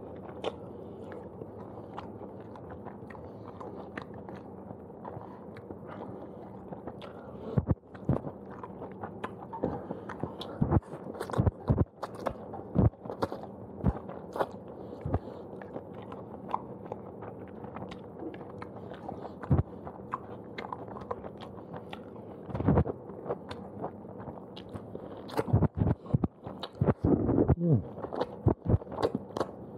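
Someone slurping and chewing fried udon noodles close to the microphone: wet sucks and mouth smacks in irregular bursts, busiest in the middle and again near the end.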